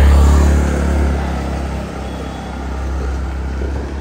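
A motor vehicle passing close on a busy street, its engine rumble loudest in the first second and then fading into steady traffic noise.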